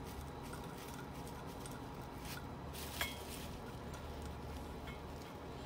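Faint clicks and small taps of a plastic solenoid valve and metal fittings being handled and fitted onto a CO2 tank regulator, one sharper click about three seconds in, over a steady low hum.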